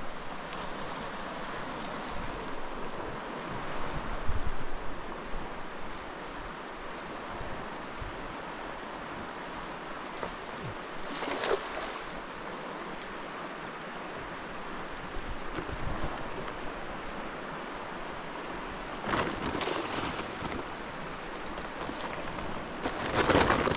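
Steady rushing of a fast-flowing river, with a few brief louder sounds over it.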